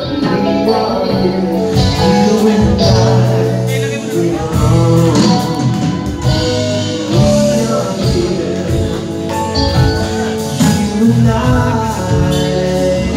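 Live band music: electric guitar, bass guitar and drum kit playing, with a singer's voice over them.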